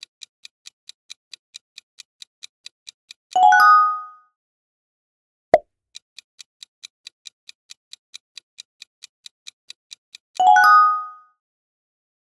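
Quiz-game sound effects: a countdown clock ticking about four times a second, broken by a bright chime about three and a half seconds in and again near the end, marking the answer reveal. A short pop comes about five and a half seconds in as the next question appears.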